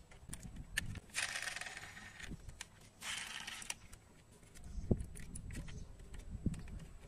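Small clicks, clinks and short scrapes of a die-cast metal model car being turned over in the hands, its little doors worked open.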